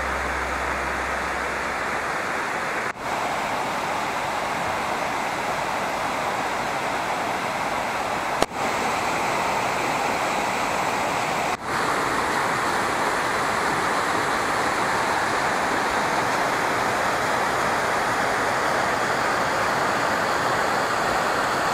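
Waterfall in a canyon: a steady rush of falling water, briefly dipping three times, with a click at the second dip.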